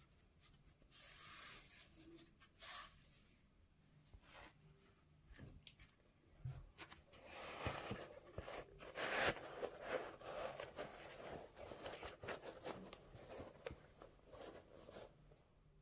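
Gloved hands handling a sneaker and its insole: soft scraping and rustling of fabric on the shoe's materials, a few brief rubs at first, then denser crackly rustling with small clicks from about six seconds in.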